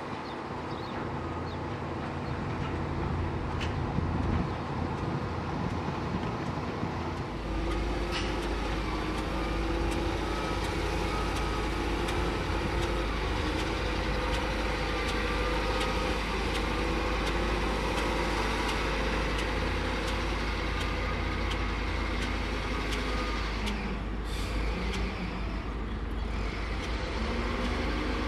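Diesel engines of heavy earth-moving machinery running under work, their pitch wavering a little as the load changes. A deep rumble grows stronger about seven seconds in.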